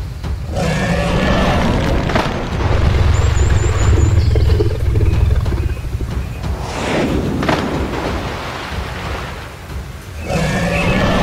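Creature roaring and growling sound effects for animated snakes facing off, over background music, with a heavy low rumble and a few sharp hits.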